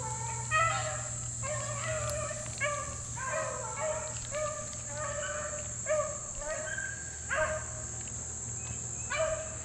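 A pack of beagles is baying in a run of short, irregular yelping calls, about one or two a second: the dogs have jumped a deer and are running its trail. A steady high insect drone goes on underneath.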